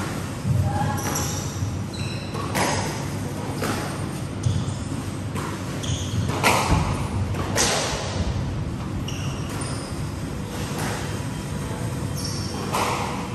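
Squash rally: the ball cracks off the rackets and the walls about once a second, with short high squeaks of rubber-soled court shoes on the wooden floor between the hits.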